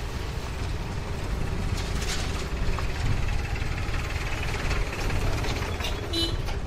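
Small engine of a motorised two-wheeler running steadily at low speed, with a brief high tone near the end.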